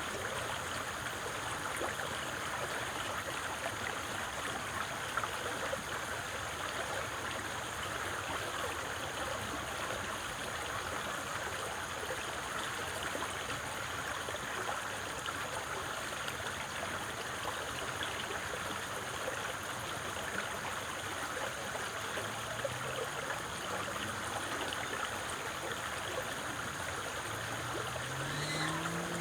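Steady rushing noise of flowing water, even and unbroken, used as a sleep white-noise track. Near the end a faint low hum rises slowly in pitch and then holds steady.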